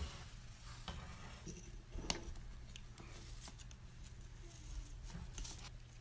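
Faint scratching and a few scattered clicks as a white-bellied caique scrabbles and rubs against a wooden floor and baseboard, over a low steady hum.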